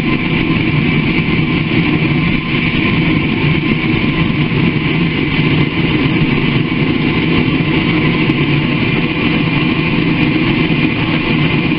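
A forge running steadily as it heats up, a loud continuous rushing noise with a steady hum in it.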